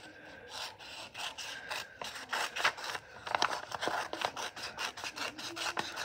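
Scissors cutting a sheet of brown kraft paper: a quick run of crisp snips and paper rustling.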